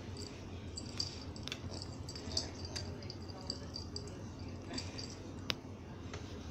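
A cat pawing and biting at a rope on a vinyl floor: scattered small clicks, taps and scuffs, one sharper click about five and a half seconds in, over a low steady hum.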